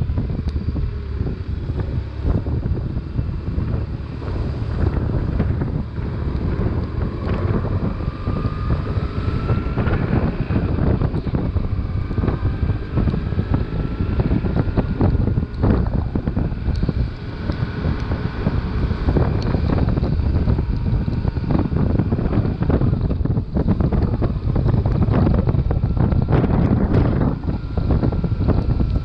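Heavy wind noise on the microphone over a BMW R1150RT's 1130 cc boxer twin running at road speed, with tyres hissing through standing water on a rain-soaked road.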